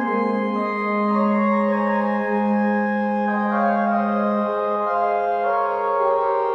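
Church pipe organ played on the manuals: slow, solemn sustained chords that change every second or so over a held lower line.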